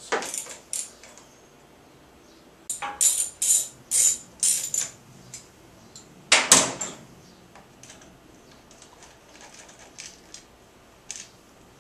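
Hand tools clicking and clinking on metal as the 10 mm bolts holding the carburetor and air box of a Honda HRX 217 mower are loosened and taken out. The sounds come in short bursts of clicks, the loudest about six and a half seconds in, with fainter ticks near the end.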